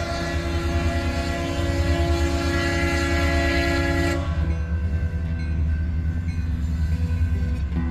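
Locomotive air horn sounding a long blast of several notes at once, cutting off about four seconds in and starting again near the end, over the steady low rumble of the train.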